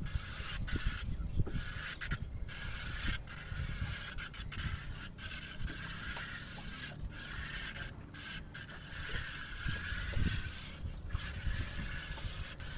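Ryobi Applause 8000 spinning reel being cranked, a steady mechanical whir that stops briefly every second or two as line is wound in with a fish on from deep water. The angler says the reel is damaged and needs replacing. A low rumble runs underneath.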